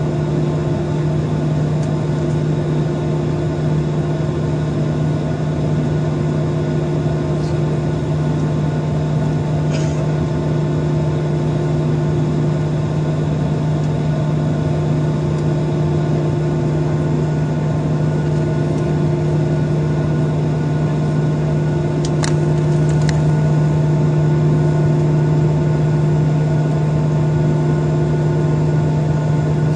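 Jet airliner's engines idling on the ground, a steady hum with several constant tones over a low rumble, heard inside the cabin at a window seat over the wing. A few faint clicks about ten seconds in and again around twenty-two seconds.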